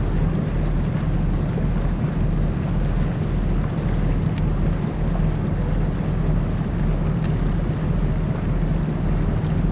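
A boat's motor running steadily under way, a low even hum, with wind buffeting the microphone.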